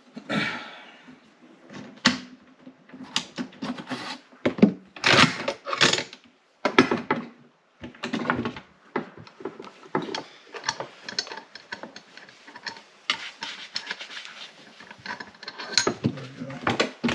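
Metal rifle parts being handled and fitted together during reassembly: a long run of irregular clicks, clacks and sliding metal, with a short pause partway through.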